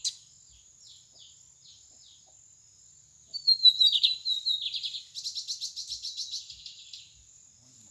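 Lined seedeater (bigodinho) singing. A few short chirps are followed, just over three seconds in, by a loud song of whistled notes that runs into a fast buzzy trill of about eight notes a second. A sharp click comes at the very start.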